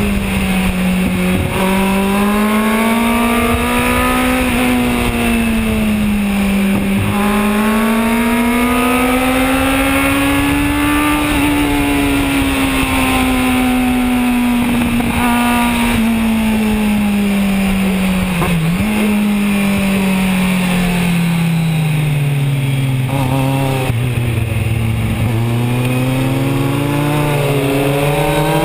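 Kawasaki Z1000 motorcycle's inline-four engine at track pace, heard from onboard, its revs rising and falling as the rider accelerates, shifts and brakes for corners. About three quarters of the way through the revs drop low for a slow corner, then climb again near the end, over a steady rush of wind.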